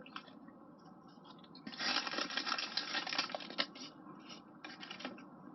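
Close-up crunching and crackling from eating a takeaway burger and chips, mostly in one stretch from about two to nearly four seconds in, with a few smaller crackles after.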